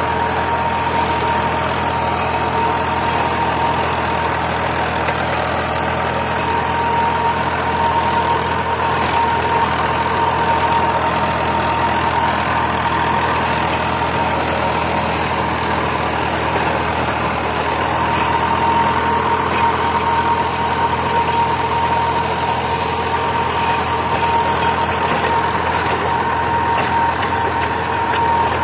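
Swaraj 744 tractor's three-cylinder diesel engine running steadily under load in low gear, driving a Shaktiman rotavator that is churning the soil. A steady high whine sits over the engine.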